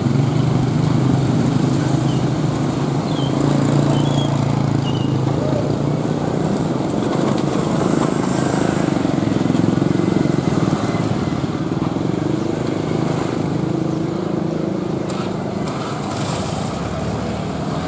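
Motorcycle engines idling steadily, with a few short bird chirps a few seconds in.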